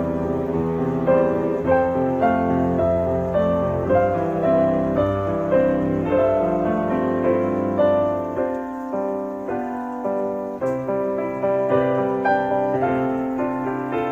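Background piano music: a slow piece of struck notes and sustained chords.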